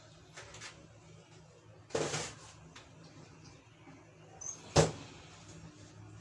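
Quiet kitchen handling sounds: a short noisy scrape about two seconds in, then a sharp knock a little before five seconds, the loudest sound, as things are moved and set down.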